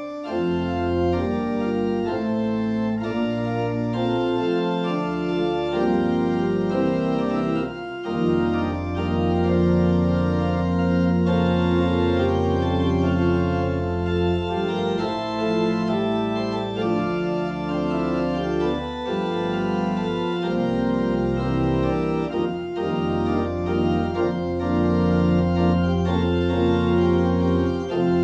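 Church organ playing the closing postlude: slow, sustained chords over long-held bass notes, the harmony changing every few seconds.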